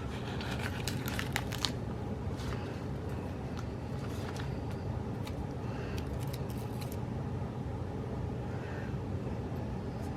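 Paper stickers and planner pages being handled and pressed down, giving short rustles and small clicks, clustered in the first two seconds and again a few seconds in, over a steady low hum.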